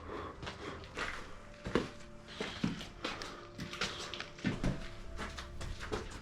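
Footsteps and scattered knocks and scuffs of people walking, irregular steps about every half second to a second.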